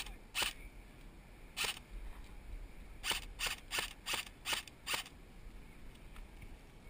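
Magpul Masada airsoft rifle firing single shots: one shot, another about a second later, then a quick string of six shots about three a second, stopping about five seconds in.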